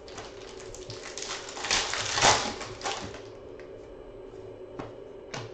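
Foil wrapper of a basketball trading-card pack being torn open and crinkled, loudest around two seconds in, then a few light clicks as the cards are handled.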